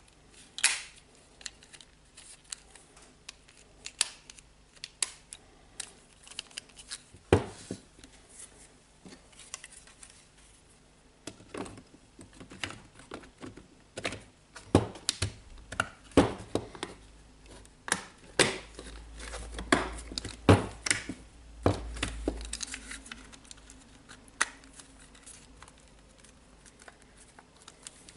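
Scattered clicks and knocks of hard plastic parts being handled and fitted together while a DeWalt cordless drill is reassembled, with a denser run of knocks and handling from about halfway through.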